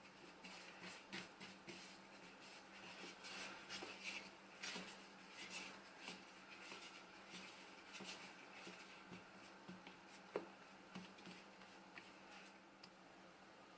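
Faint, irregular scraping and rustling of hand food preparation for green onion pancakes, with a single sharp tap about ten seconds in and a low steady hum underneath.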